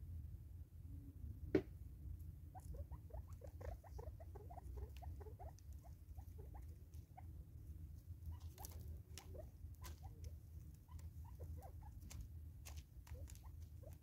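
Faint, rapid, soft squeaky notes from francolins feeding, each note dropping in pitch, mixed with small sharp taps and clicks of pecking and scratching. A single louder tap comes about a second and a half in. A steady low rumble runs underneath.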